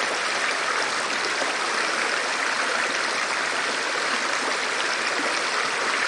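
Stream water flowing over rocks in a steady, unbroken rush.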